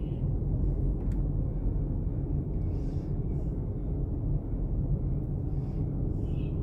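Steady low outdoor rumble, with faint calls of cockatoos in the distance near the end.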